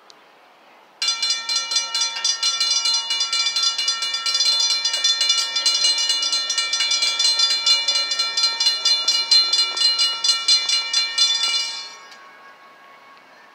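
Railroad grade-crossing warning bell ringing rapidly and loudly as the crossing activates and its gates come down ahead of an approaching train. It starts about a second in and cuts off near the end.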